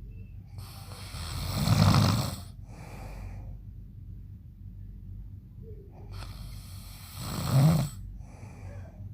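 A man snoring loudly: two snores, the first in the opening seconds and the second near the end, each swelling up to a peak and followed by a shorter, fainter breath.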